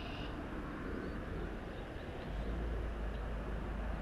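Steady low outdoor rumble with a noisy hiss, growing heavier about halfway through; a bird chirps briefly at the very start.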